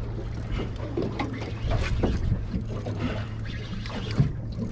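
Water slapping and splashing against the hull of a small fishing boat at sea, over a steady low hum.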